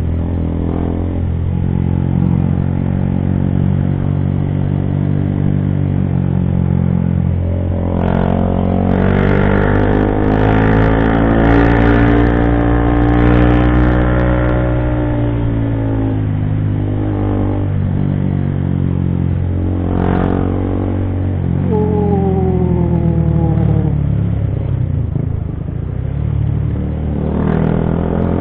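Motorcycle engine running under way on an uphill road, its note rising and falling as the revs change. A few brief clattering sounds come through in the middle.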